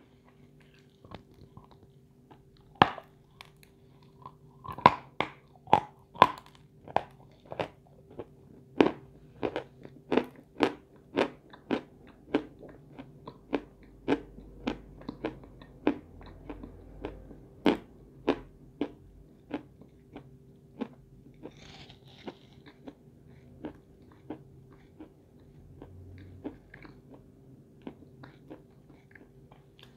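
A lump of white chalk being bitten and chewed: a run of sharp, dry crunches, about two a second, that thin out and grow quieter after about twenty seconds.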